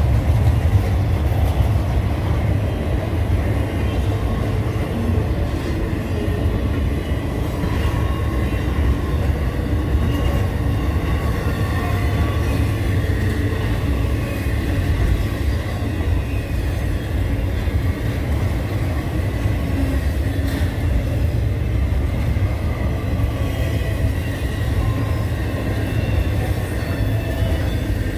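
Freight train rolling past at track side: a steady, loud low rumble of cars on the rails, with faint high-pitched wheel squeal over it.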